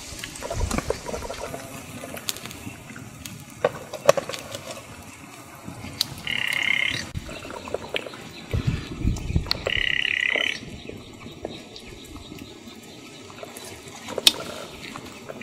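Wet squelching and light clicks as raw fish steaks are laid in a metal pan of chili marinade and the marinade is spooned over them. Twice, about six and ten seconds in, a short steady animal call sounds in the background, each under a second long.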